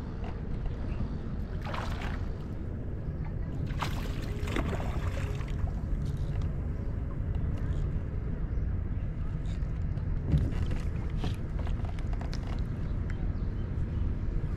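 Water slapping and lapping against a moving fishing kayak's hull, with a steady low wind rumble on the microphone. A few short, louder splashes come through at intervals.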